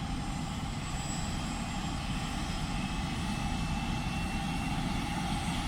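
Helicopter running, a steady engine and rotor noise that grows slowly louder.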